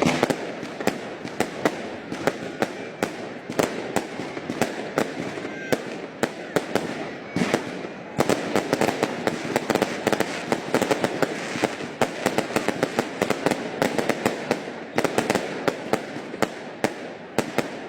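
Fireworks display: a rapid, irregular string of sharp bangs and crackles that grows denser about eight seconds in.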